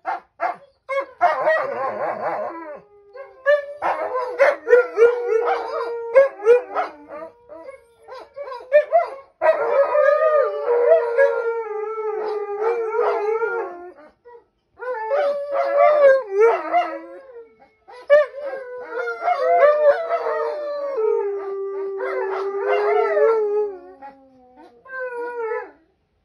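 Dogs howling in long, wavering howls, several bouts of a few seconds each with short breaks between.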